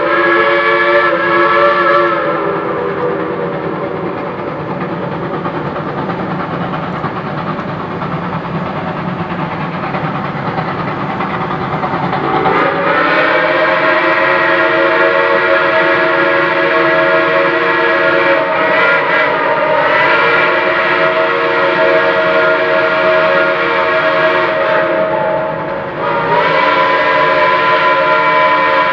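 Chime steam whistle of a Shay geared steam locomotive blowing long blasts: one ends about two seconds in, then after a stretch of steady rushing noise a long blast starts about twelve seconds in and runs nearly to the end, broken briefly about three seconds before the end.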